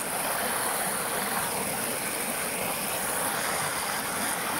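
Steady rushing of a creek in flood, its current strongly swollen by a thunderstorm's heavy rain.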